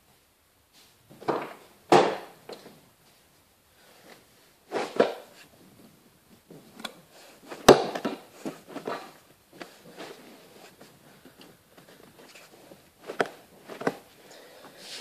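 Handling noises inside a car's cabin: a string of separate knocks and clunks with rustling between, the sharpest knock about eight seconds in, as interior trim and seat parts are moved.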